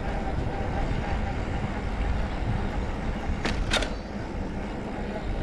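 Steady low rumble of a bicycle rolling along a street, tyre and wind noise on a bike-mounted camera, with two sharp clicks close together a little past halfway.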